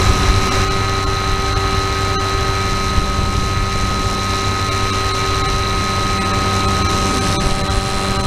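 FPV aircraft's electric motor and propeller heard on board, a steady whine of several fixed tones over a rushing wind noise and low rumble, holding a constant throttle in cruise.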